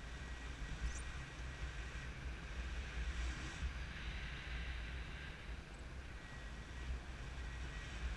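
Steady wind rush and low buffeting on the GoPro's microphone from the airflow of an unpowered tandem paraglider in flight.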